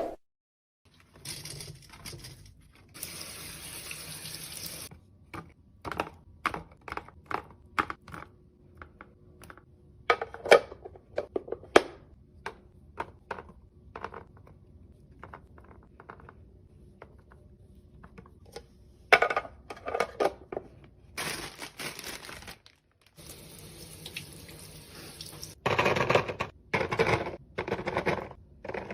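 Fridge-restocking handling sounds: liquid poured into containers in stretches of a few seconds, with many sharp clicks and knocks of plastic and glass containers being handled and set down.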